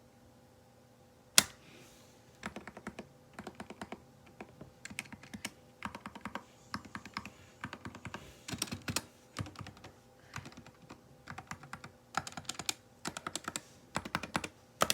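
Typing on a SteelSeries Apex Pro TKL mechanical keyboard with HyperX Pudding keycaps: one sharp, loud keystroke about a second and a half in, then bursts of rapid key presses.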